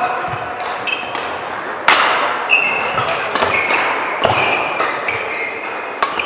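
Badminton rally: sharp cracks of rackets hitting the shuttlecock at irregular intervals, the loudest about two seconds in, with short, high squeaks of shoes on the court floor in between.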